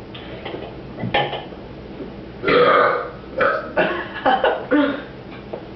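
A person burping on purpose: a brief burp about a second in, then a long loud burp, followed by several short bursts.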